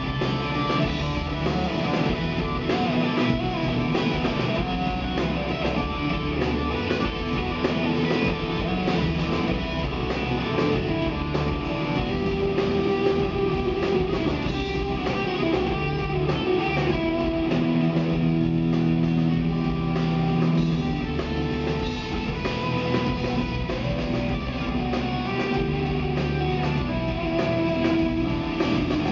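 Rock band playing live on electric guitars, bass guitar and drums, with strummed guitar chords and notes held for a second or two at a time.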